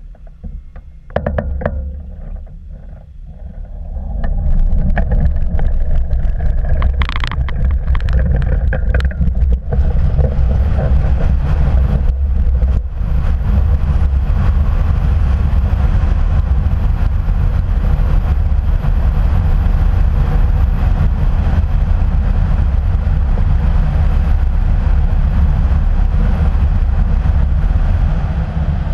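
Aerotow takeoff of a hang glider: a loud, steady rumble of wind and rolling as the wheeled launch cart is towed across grass and the glider climbs out. The rumble rises sharply about four seconds in and stays loud throughout.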